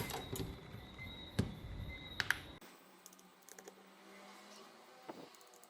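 Small sharp clicks and taps of a precision screwdriver and tiny screws being worked out of a smartphone's inner metal plate, a few distinct clicks in the first half and fainter ticks later. The background hum drops away suddenly about two and a half seconds in.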